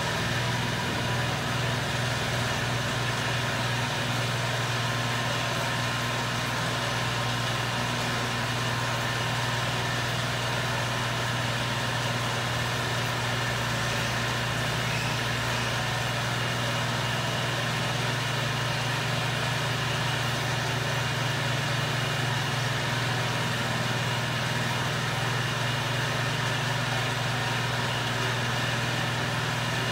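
Heat gun fan motor running steadily: a low electric hum under a rushing-air hiss.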